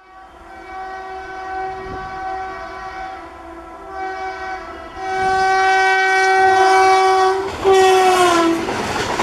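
Indian Railways electric locomotive's horn sounding long, steady blasts as the train approaches, with a short break a little after three seconds. Near the end the horn's pitch falls as the locomotive passes, and the rushing noise of the passing train follows.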